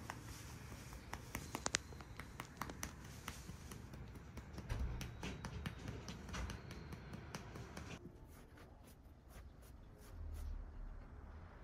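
A hand patting a cat's back and rump: a run of quick, irregular light taps. About eight seconds in the taps stop and only fainter ticks remain.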